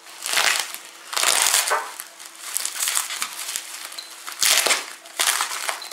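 Plastic bubble wrap crinkling and crackling as it is pulled open and unwrapped by hand, in several bursts of rustling with short pauses between, the loudest about a second in and again about four and a half seconds in.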